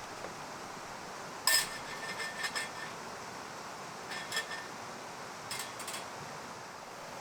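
Hard metal pieces clinking together. One sharp, ringing clink comes about a second and a half in, followed by a short rattle of lighter clinks and two more brief clusters of clinks later, over a steady background hiss.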